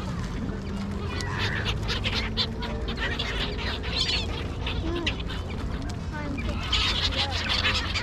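A flock of gulls calling, many short overlapping cries, busiest near the end, over a low steady hum.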